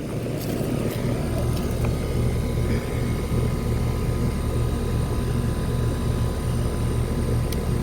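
Rheem Endeavor Line 1.5-ton central air conditioner's outdoor unit running steadily: the Copeland compressor's low hum under the rush of the condenser fan, the hum growing stronger about a second in.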